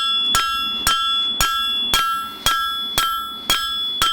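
Hand hammer striking hot steel on an anvil at a steady pace of about two blows a second, each blow leaving a high ringing tone from the anvil. The smith is working the uneven flattened fishtail end of the bar to even it out.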